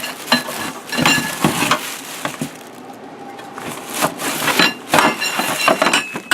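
Table saw parts and packing being handled and pulled from a shipping box: irregular rustling, scraping and knocks of parts against cardboard and packing.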